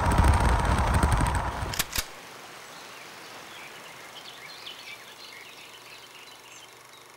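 Steady low rumble of road and wind noise inside a moving car, which stops abruptly after about two seconds with a couple of sharp clicks. After that it is much quieter, with faint high chirps.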